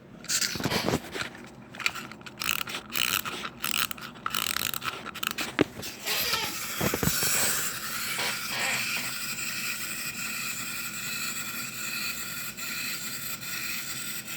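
A small wind-up toy suitcase being wound: its winding key and ratchet click irregularly for about the first six seconds. Then its clockwork motor whirs steadily as the toy walks.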